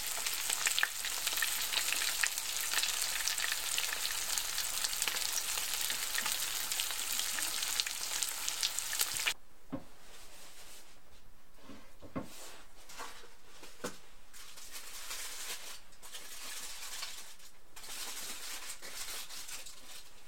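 Steak sizzling and crackling in a hot frying pan, cutting off suddenly about nine seconds in. After that, a quieter stretch with scattered light clicks and taps.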